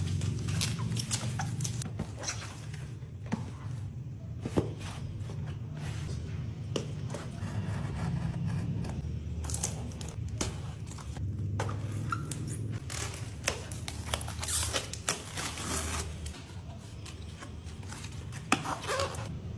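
Plastic packaging and a plastic storage container being handled: rustling and scraping with scattered clicks and taps, over a low steady hum.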